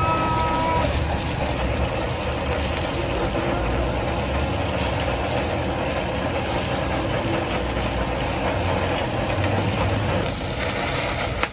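Handheld butane blowtorch flame hissing steadily as it sears skewered tuna chunks, with oil sizzling in the pan underneath.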